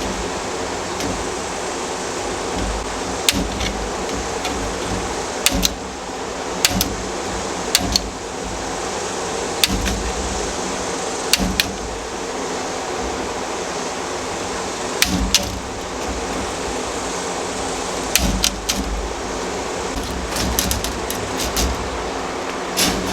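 Wire cutters snipping through half-inch hardware mesh: about ten sharp, short clicks at irregular intervals over a steady rushing background noise.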